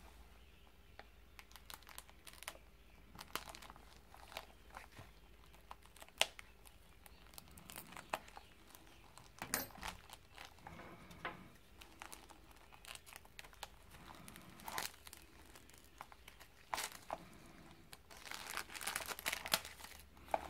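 Clear plastic packaging of a gasket set crinkling and crackling as gloved hands work at it and pry it open with a screwdriver, in irregular small clicks and rustles, with a busier run of crackling near the end.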